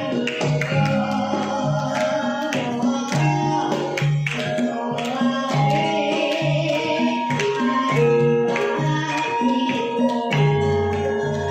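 Javanese gamelan-style music: ringing metallophone notes over a steady pattern of hand-drum (kendang) strokes, with a young girl's singing voice.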